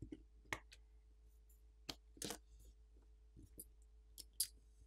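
A handful of faint, sharp clicks and taps from a blue plastic pry pick working under a smartphone's main board and the board being lifted out of its metal frame.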